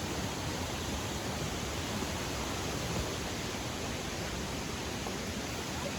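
Steady rush of flowing water from a nearby creek or waterfall, an even hiss with no breaks.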